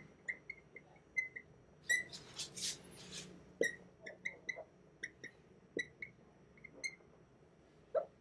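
Whiteboard marker squeaking across the board as words are written: an irregular string of short high squeaks, with a brief hiss about two seconds in.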